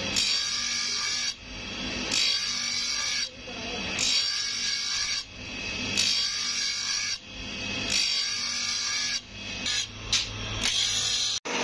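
Grinding wheel on an electric motor working a clutch-plate lining in repeated passes, about one every two seconds. Each pass drops off sharply and then builds back up.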